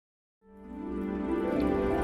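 Silence, then soft background music fades in about half a second in, with sustained, held tones.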